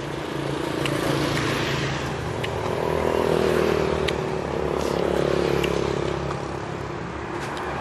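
Road traffic passing on the street: motorbike and car engines swell and fade twice over a steady hum, with a few light clicks.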